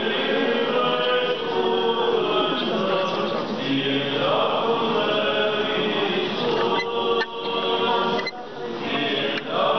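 Several voices singing Orthodox church chant together, sustained melodic lines that keep on without a break.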